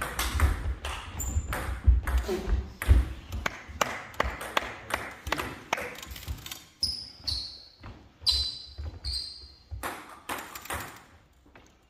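Table tennis ball being hit back and forth, a quick run of sharp clicks off the bats and table with low thuds from the players' footwork on the wooden floor. About halfway through the rally ends and the ball gives a few separate ringing bounces. A few more clicks come near the end.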